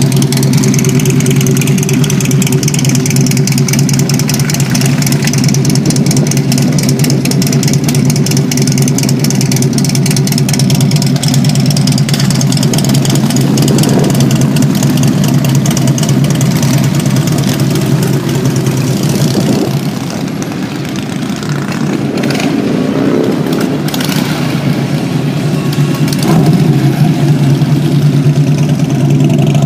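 Harley-Davidson touring motorcycle's V-twin engine idling steadily through its chrome exhaust, with an even pulsing note; it gets louder near the end as the bike is readied to pull away.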